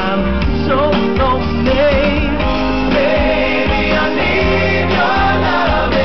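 Live pop band music with singing, amplified over a PA: a wavering sung melody with vocal runs over bass guitar and a steady drum beat.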